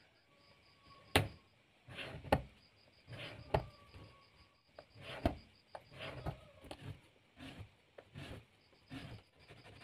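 A pointed scribing tool scoring a thin PVC sheet against a steel ruler on a cutting mat. About a dozen short scraping strokes, several starting with a sharp click, begin about a second in.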